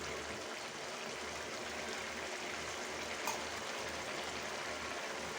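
Pui saag curry with mustard-poppy paste simmering in a kadai over the gas, a steady bubbling hiss, with one small click about three seconds in.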